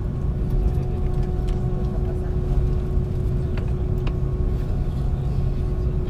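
Steady cabin noise of a parked Airbus A330-200: a constant low rumble with a steady hum over it and a few faint ticks.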